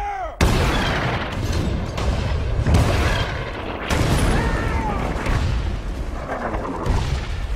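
Artillery shells exploding in a battle sound effect: three heavy blasts about three seconds apart, each trailing off in a long low rumble.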